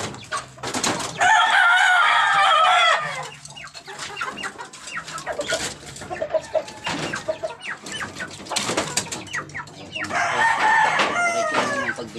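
Gamefowl roosters crowing: one long crow about a second in, lasting nearly two seconds, and another near the end. Shorter clucks, and knocks and rustles from the bamboo coops, come in between.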